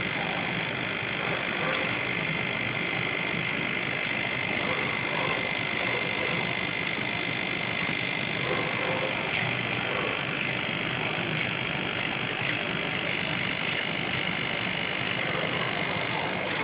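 Steady machine hum with a constant high whine over an even hiss, unchanging throughout.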